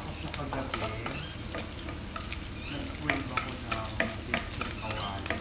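Garlic and onions sautéing in oil in a nonstick frying pan, sizzling steadily, while a spatula stirs and scrapes them, with sharp clicks of the spatula against the pan from about three seconds in.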